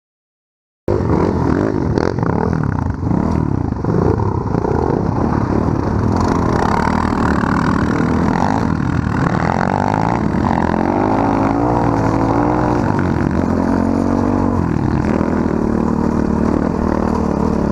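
Small off-road engines revving hard, pitch rising and falling repeatedly, starting abruptly about a second in.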